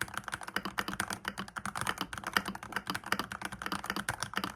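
Halo65 aluminium custom mechanical keyboard with stock Gateron Pro Red linear switches, typed on quickly in a sound test: a fast, uneven stream of crisp key clicks and clacks.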